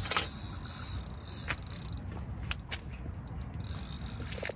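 Ratchet of a fishing reel's free-spool clicker rattling fast as a fish takes line on a bite, thinning out about two seconds in to a few separate clicks and knocks.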